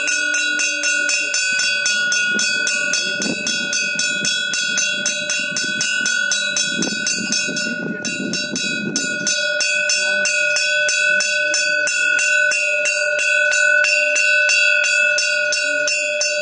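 A puja bell rung rapidly and without a break during worship at the shrine, about five strokes a second, its ringing tones held steady. Low crowd voices run under it until about halfway through.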